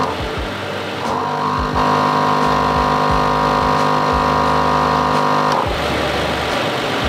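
Smittybilt 2781 portable 12 V air compressor running steadily, pumping air into a truck tyre through a hose on the valve stem. Sustained music-like tones sound over it, dropping out briefly near the start and stopping about two-thirds of the way through.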